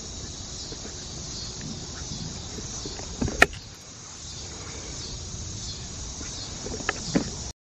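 Insects chirring steadily in the evening, a high, even hiss. A sharp click about three and a half seconds in, and two fainter clicks near the end. Then the sound cuts off suddenly.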